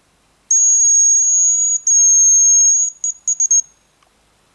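Hazel grouse decoy whistle blown close by, imitating the bird's song: two long, thin, very high whistles at one steady pitch, followed by four short quick notes.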